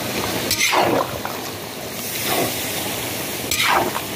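Chopped tomatoes and vegetables being stirred in hot oil in a kazan: three wet, sloshing stirring strokes, each a swish falling in pitch, over a steady hiss of frying.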